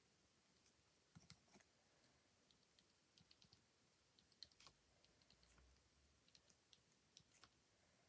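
Near silence with faint, irregular small clicks and taps of a white pen tip dabbing highlights onto card.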